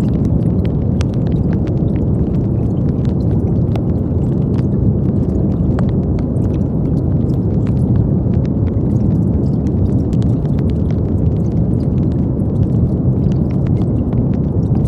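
Steady brown noise: a deep, even rumbling hiss. Faint scattered crackles are sprinkled over it.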